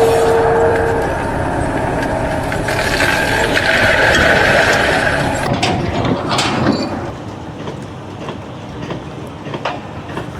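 Machinery running with mechanical clanking and grinding, loud for the first several seconds and then quieter, with a brief steady tone at the very start.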